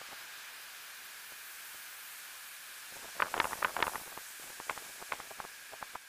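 Steady hiss, with a quick run of sharp crackles about three seconds in and scattered single clicks after it.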